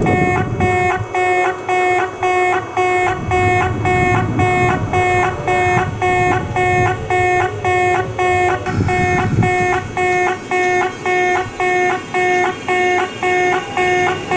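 Japanese railway level-crossing alarm ringing its electronic warning tone at about two strokes a second, each stroke a short steady pitched note with overtones. A low rumble comes and goes beneath it.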